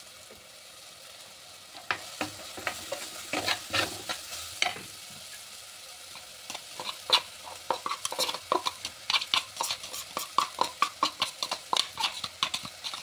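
A metal ladle stirring chopped spinach in a clay handi, its short scrapes and knocks coming several times a second and quickening after about six seconds. Under it is a steady sizzle as the spinach sautés in the oil of a tomato-onion masala.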